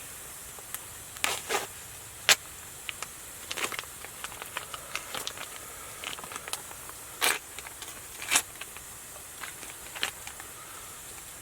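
Campfire crackling, with irregular sharp pops over a steady hiss.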